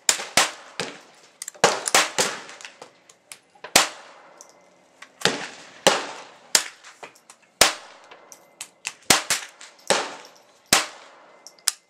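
Gunfire: many sharp shots at irregular intervals, some close and loud, others fainter from further along the firing line.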